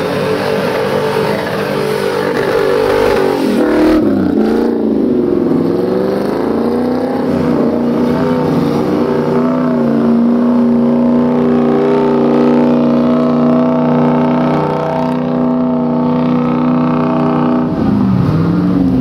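Off-road buggy's engine revving hard under load. The revs swing up and down for the first few seconds and dip around four to five seconds in. They are then held high and steady for about eight seconds before dropping sharply near the end.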